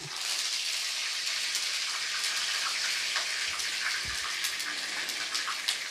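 Hot oil sizzling with many small crackling pops in a wok as fresh curry leaves fry with whole star anise, bay leaf, cinnamon and lemongrass: the spice-tempering stage of the dish.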